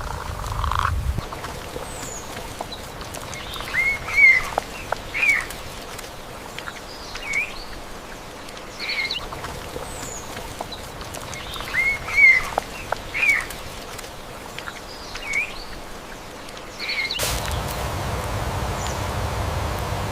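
Indian peafowl calling: a series of short, loud calls, some in quick pairs, with pauses of a second or more between them. About 17 seconds in, a steady rushing noise starts abruptly.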